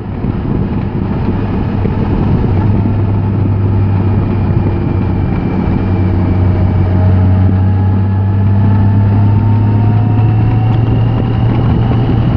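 Motorcycle engine running at road speed with wind rushing past: a steady low hum under a noisy rush, with a faint whine that climbs gently in pitch in the second half.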